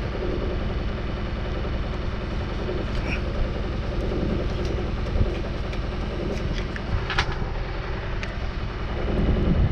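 A steady low rumble, with a few light clicks and taps as taped wires and connectors are handled in a boat's engine bay.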